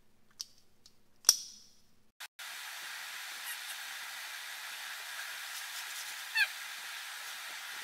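A clapperboard snaps shut with one sharp clack a little over a second in, after a faint click. Then a steady hiss of room noise, with one brief honk-like call about six and a half seconds in.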